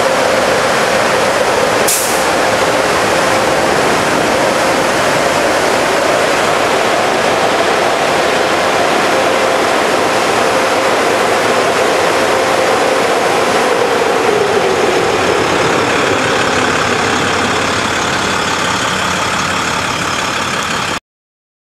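Medium-duty tow truck running at low speed, with a loud steady rushing noise and a steady hum that sinks in pitch about two-thirds of the way through. A short sharp hiss comes about two seconds in. The sound cuts off suddenly near the end.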